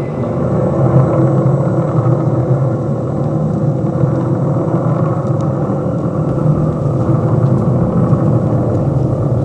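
Science-fiction spacecraft engine sound effect: a loud, steady rumble.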